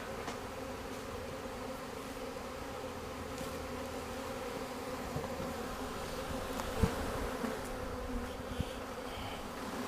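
A mass of honey bees buzzing in a steady, dense hum: package bees just shaken out in front of the hive, crawling their way in. There is a faint knock about seven seconds in.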